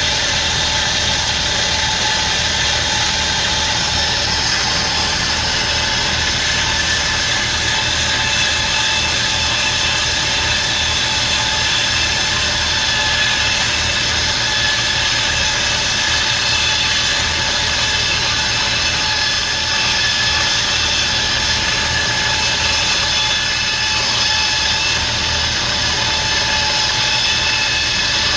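Wire saw cutting a concrete column: a steady machine drone with several high, whining tones above it.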